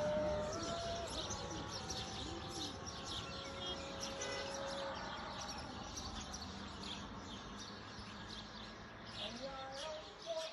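Small birds chirping, many quick short high calls overlapping, over a low steady outdoor hum.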